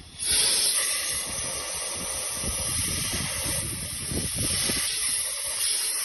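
Compressed-air blow gun hissing loudly as it blasts through a Dyson DC41 vacuum's airways and filter housing, clearing the dust that blocks them and robs the vacuum of suction. The hiss starts abruptly just after the start and stays steady.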